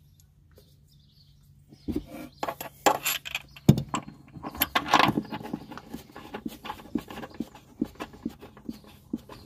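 Irregular metallic clicks, clinks and knocks of hands and tools working the rear suspension hardware while a new rear upper control arm is fitted. They start about two seconds in, with the sharpest knock near four seconds.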